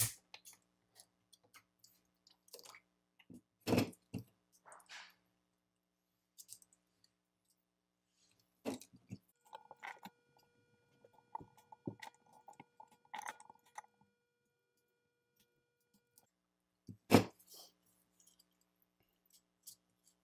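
Scattered clicks and metallic snaps of a flat-bladed tool prying the nickel connection strips off the 18650 cells of a DeWalt 20V Max battery pack, with the cell block knocked and handled on the bench. There is a sharp snap about four seconds in and the loudest near the end, with light crackling in between.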